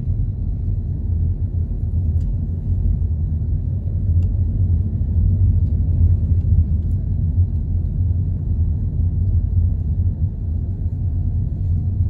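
Steady low rumble of a car driving slowly, heard from inside the cabin.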